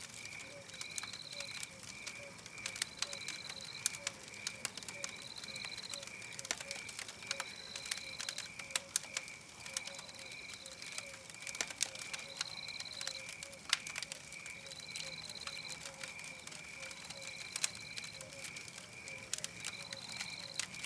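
Campfire crackling with irregular sharp pops. Under it runs a steady night chorus of chirps: one chirp pulses about two and a half times a second, and a higher chirp comes back about every two seconds.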